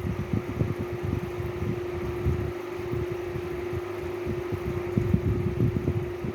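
A fan-type motor running: a steady hum with an irregular low fluttering rumble underneath.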